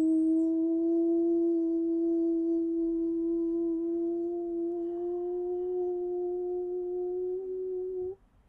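A man's voice toning one long held note during a meditation, the pitch drifting slowly upward; it cuts off suddenly about eight seconds in.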